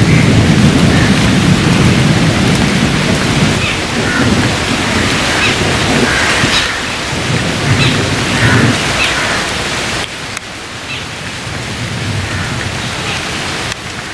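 Heavy rain falling steadily, with a deep rumble of thunder that is strongest in the first half and fades. The sound drops abruptly about ten seconds in and again near the end.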